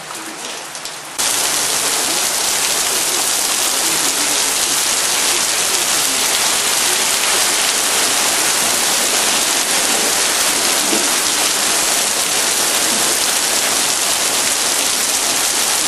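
Heavy rain falling onto pavement in a storm, a loud steady hiss that jumps suddenly louder about a second in.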